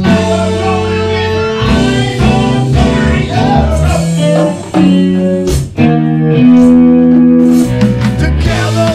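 A rock band playing live: electric guitar, electric bass and congas, with a man singing. The band stops short twice around halfway, then holds one chord for about a second.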